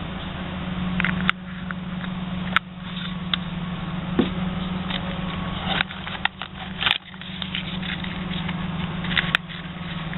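Crackling and scraping of packaging and kit parts being handled, with a few sharp clicks and knocks a second or two apart, over a steady low hum.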